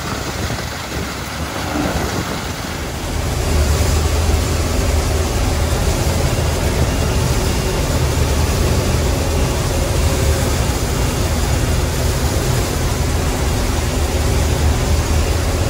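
1978 Gleaner F2 combine running steadily while harvesting soybeans with its 13-foot soybean head. About three seconds in, the sound turns into a louder, steady low drone of engine and threshing machinery heard from inside the cab.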